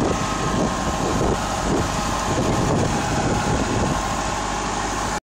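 Tractor engine running steadily while a Stanhay precision seed drill rattles and clatters along behind it, planting. The sound cuts off suddenly near the end.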